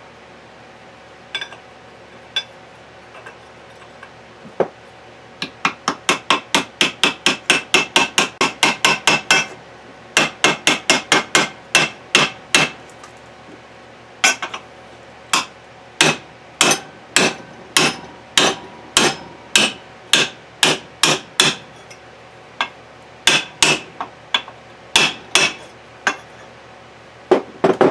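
Hammer tapping a bronze sleeve bushing into a metal gearbox case: a few single taps, then a fast run of about four taps a second, then steadier taps about two a second.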